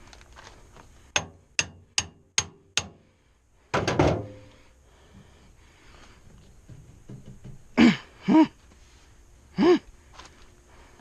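Work on a KDX200 dirt bike during the engine teardown. First come five quick, sharp strikes, evenly spaced about half a second apart, then a heavier clattering thud. Later there are three short, loud sounds, each dropping in pitch.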